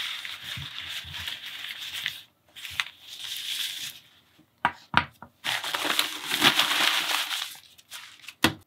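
Crumpled packing paper crinkling and rustling as it is unwrapped by hand, in several stretches. About halfway through there are a couple of sharp taps as a small plastic vial is set down on the wooden tabletop, and another tap comes near the end.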